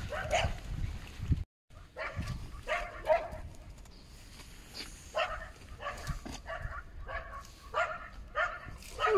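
A dog barking repeatedly, about a dozen short barks spaced through several seconds.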